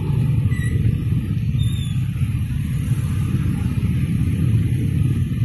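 Steady low rumble of a passenger train running away down the track.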